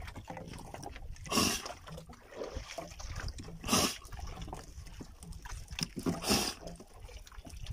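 A freshly landed large squid blowing water and air out through its siphon in three short, wet, snore-like gusts about two and a half seconds apart.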